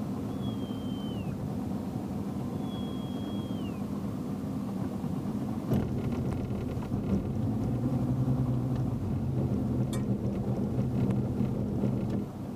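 Motorboat engine running at low speed, a steady low hum that grows louder about halfway through. Two short thin whistles, each falling in pitch at the end, come in the first four seconds, and there are a couple of sharp clicks.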